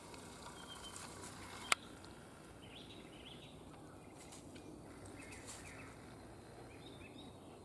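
Quiet outdoor ambience with a few faint, brief bird chirps scattered through, and a single sharp click about two seconds in.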